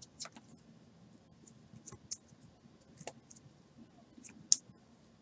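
Trading cards in clear plastic holders being shuffled and sorted in the hand: scattered light clicks and taps, the sharpest one a little past four seconds in.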